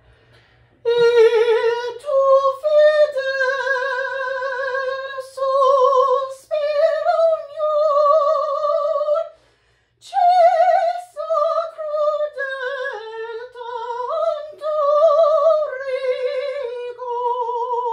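A woman singing unaccompanied in a classical style, holding long notes in her upper range with vibrato. She sings two phrases with a breath about halfway through: a voice student working on the high passage of a song.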